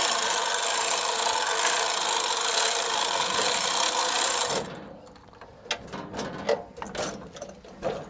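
Hand-crank winch being wound under load, hauling a 900 lb log up loading ramps: a steady rasping ratchet. It stops abruptly about four and a half seconds in, followed by a few light clicks and knocks.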